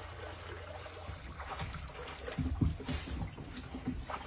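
Faint splashing and lapping of water as a dog swims through shallow, icy marsh water, with a few soft splashes about two to three seconds in, over a low steady rumble.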